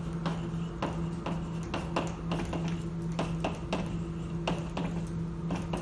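Chalk writing on a blackboard: a quick, uneven run of taps and short scratches as words are written, over a steady low hum.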